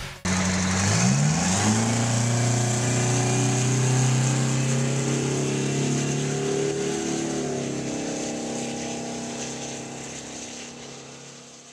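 A diesel drag-racing truck's engine running hard on a drag strip. Its note rises about a second in, then holds steady and slowly fades as the truck pulls away down the track.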